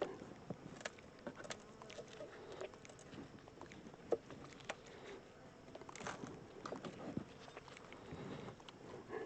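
Honey bees buzzing faintly around an open hive, with scattered light clicks and taps throughout.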